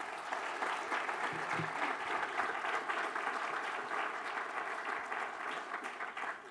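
Audience applauding: a room full of steady hand clapping that starts to die down near the end.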